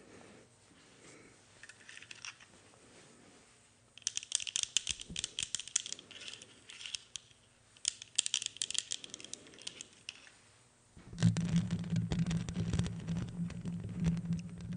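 Crackly clicks and rustles in two spells of a couple of seconds each, from hands handling a pair of plastic light-up glasses right by the microphone. Then, about two-thirds of the way through, louder rubbing and scratching of fingers directly on the microphone head, with a deep rumble.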